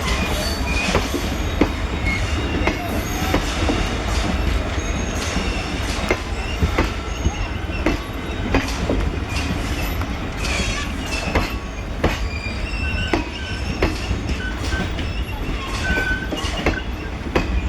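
Passenger train rolling past on steel rails: a steady heavy rumble with wheels clicking over rail joints and short high wheel squeals now and then.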